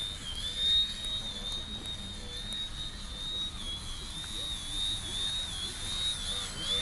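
Electric motor and propeller of a small battery-powered Yak-55m RC aerobatic plane whining in flight. The pitch dips and rises again and again as the throttle is worked while the plane hovers and manoeuvres low.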